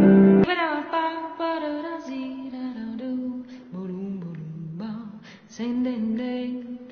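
Dance-routine music: an instrumental track cuts off abruptly about half a second in and is replaced by a female voice singing a 1920s-style scat number, her pitch sliding and breaking.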